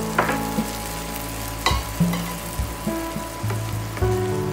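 Chopped onions and tomato paste sizzling in oil in a nonstick kadai, with a few sharp clicks. Near the end a wooden spatula starts stirring through the pan. Background music plays alongside.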